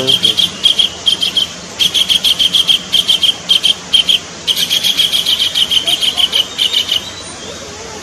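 Collared kingfisher calling: three long runs of short, high notes repeated in quick succession, with brief pauses between the runs.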